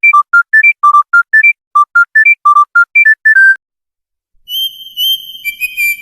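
Smartphone ringtone: a quick melody of short electronic beeps, about five notes a second, stepping up and down in pitch, which stops about three and a half seconds in. After a brief silence a second ringtone begins with high, held, whistle-like tones.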